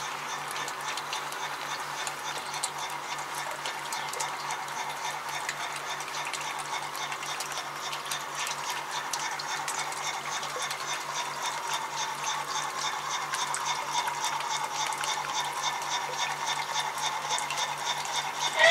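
Garden-railway train with a steam locomotive running along the track: a steady rushing noise with fast, regular ticking, growing slowly louder as the train approaches.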